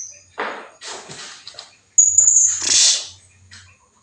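Blue-crowned hanging parrot (serindit) calls as a lure: harsh, raspy screeches in two clusters, with a thin high whistle between them about two seconds in.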